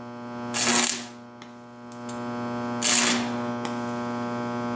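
Stick welder humming steadily, with two short bursts of arc crackle as a stainless electrode is struck against thin stainless exhaust tubing, about half a second in and again about three seconds in.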